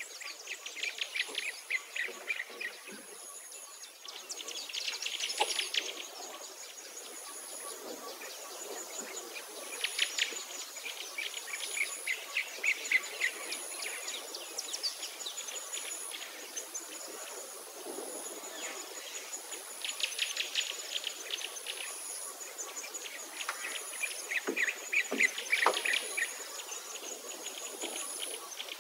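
Natural birdsong: small birds giving bouts of rapid trills and chirps every few seconds, over a thin high note that repeats about once a second.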